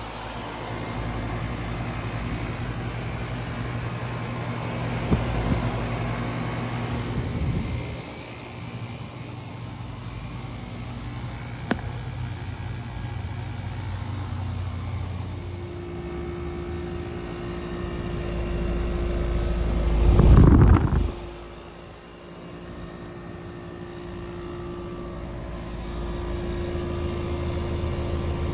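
Outdoor heat pump units running: a steady compressor hum under the whoosh of the condenser fan, the pitch and mix changing from one unit to the next, with a steady higher hum joining partway through. A loud swell of noise builds about twenty seconds in and stops abruptly.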